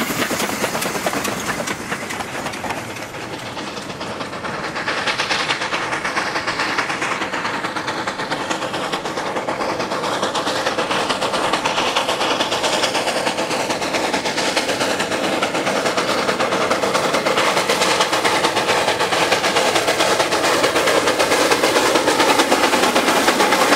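C2-class narrow-gauge steam locomotive hauling coal wagons, running toward and past the listener: a steady mix of steam exhaust, clanking running gear and wheels clattering over the rail joints. It grows steadily louder from about four seconds in as it draws near.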